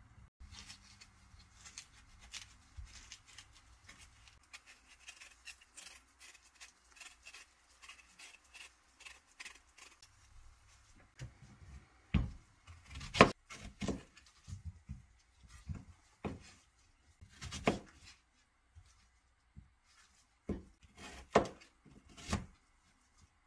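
A kitchen knife peeling a sweet persimmon with faint scraping and clicking. About halfway through it gives way to the knife slicing through the fruit and knocking down on a plastic cutting board, an irregular run of sharp knocks.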